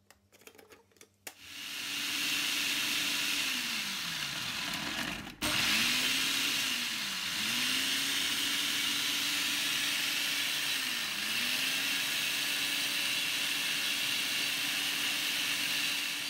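Mito BL 100 electric food processor running, its blade grinding shallots, garlic, candlenuts and ginger into a spice paste. A few light clicks as the lid is fitted, then the motor starts about a second in and runs with a steady whir; its pitch sags and recovers a few times, and it cuts out briefly about five seconds in before running on.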